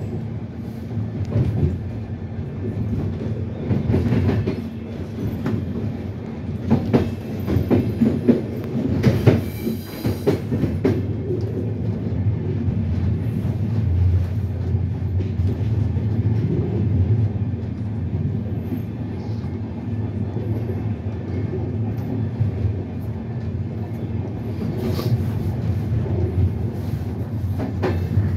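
Passenger train running, heard from inside its rear carriage: a steady rumble of wheels on rail. A run of clacks and knocks about four to eleven seconds in, as the wheels cross points and rail joints.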